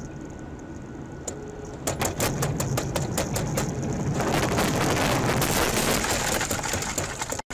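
Car road noise on a wet road: a steady low hum, then from about two seconds in a rapid patter of clicks and a louder hiss of spray as the car runs close beside a truck. It cuts off suddenly near the end.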